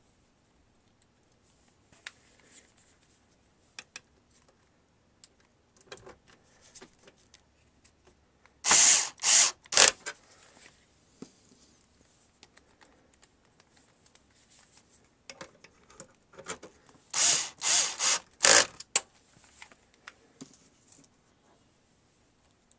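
Screws being driven down into a DVD recorder's chassis: two spells of short, loud grinding bursts, three about nine seconds in and four near eighteen seconds, with light clicks and handling noise between.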